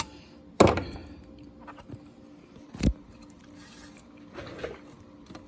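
Metal tool clanking and scraping on the metal parts of an SCM Sterling typewriter as a bracket is bent off its post: a loud clank about half a second in, a sharp click near three seconds, then softer scraping.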